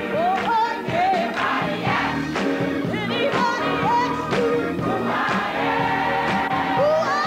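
Live gospel music: a woman sings the lead over a church choir with drums, her voice sliding up into held notes.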